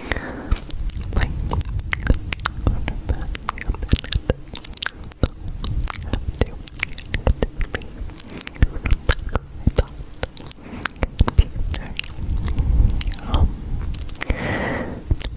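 Close-up crisp crunching and clicking, a dense irregular run of sharp little snaps over a low rumble, like chewing close to a microphone.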